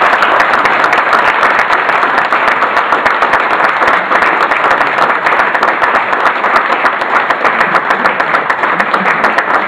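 Loud, sustained applause: many people clapping together, a dense, even patter of hand claps.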